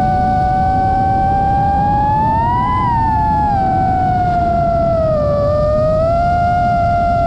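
The brushless motors and props of an FPV freestyle quadcopter whine as heard from its onboard GoPro, over a low wind rumble. The pitch rises to a peak just before the middle with throttle, drops lower a couple of seconds later, then settles and creeps up again near the end.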